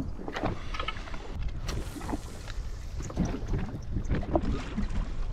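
Water slapping and lapping irregularly against the hull of a drifting jet ski, with wind buffeting the microphone.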